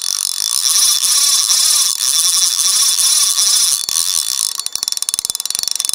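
Rapid ratchet-like clicking, fast and dense, thinning into separate slower clicks over the last second or so before cutting off suddenly.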